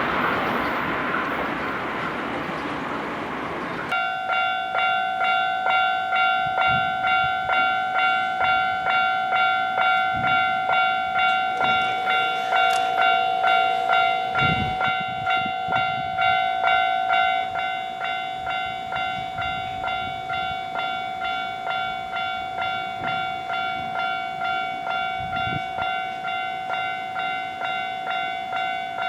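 A passing train's rumble fades away. About four seconds in, an electronic railway level-crossing warning bell starts ringing. It strikes a ringing tone evenly, about three times every two seconds.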